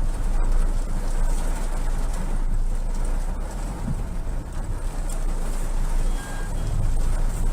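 Strong wind gusting against the microphone with a low rumble, over a steady rush of heavy rain.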